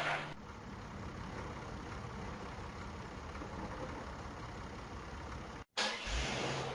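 Bus engine idling steadily, cutting off abruptly about five and a half seconds in. A brief, louder, different sound follows near the end.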